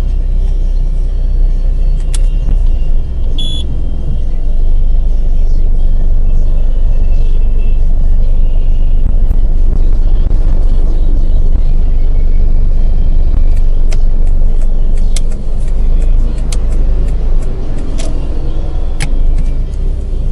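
Steady low rumble of city traffic and buses, heard from inside a stopped car, with a few sharp clicks in the second half.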